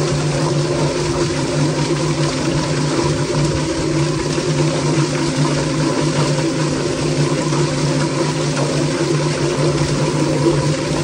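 A Yardbird drum chicken plucker running steadily: its electric motor hums as the spinning plate tumbles a chicken against the rubber plucking fingers. Water spraying into the drum splashes and hisses the whole time.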